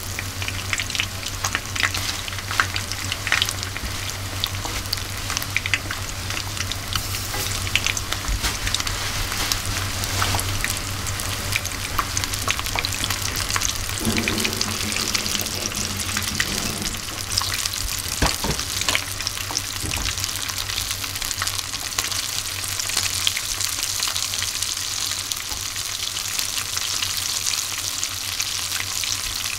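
Small whole chika (Japanese surf smelt) deep-frying bare in hot oil: a steady, dense sizzle with many small crackling pops.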